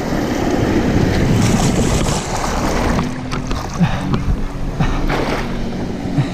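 Lake water splashing and churning around a snowmobile sitting low in the water, with wind buffeting the microphone; from about halfway a faint steady engine hum and a few sharp splashes come in.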